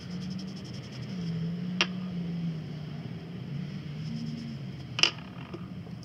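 Metal tensioner bolts being handled and set down on a wooden workbench while they are cleaned. There are two sharp knocks, about two seconds in and again about five seconds in, over a low steady hum.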